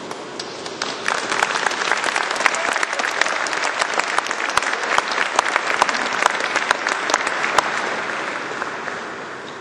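Audience applauding: dense clapping that builds about a second in and fades away near the end.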